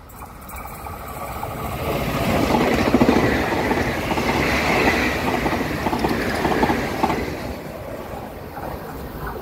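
Taroko Express TEMU1000 tilting electric train passing: the rumble and clatter of wheels on the rails build up over the first few seconds, stay loud for several seconds, then fade as it moves away.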